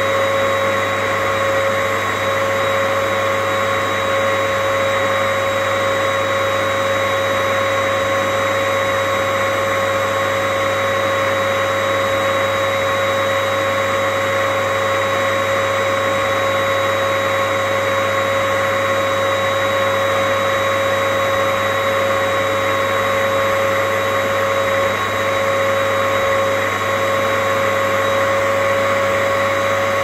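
Vacuum cleaner running continuously: an even rushing hiss of air with a steady motor whine over it, unchanging throughout.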